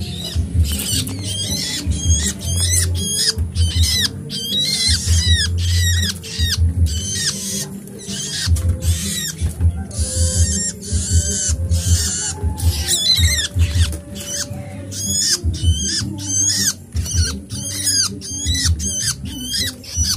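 Hungry songbird nestlings begging for food: a rapid, continuous run of shrill chirps that sweep up and down, with low thumping underneath.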